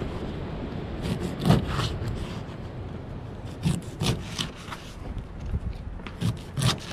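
Knife cutting a mackerel into steaks: the blade saws through flesh and backbone, with a handful of sharp knocks as it comes down on the cutting board.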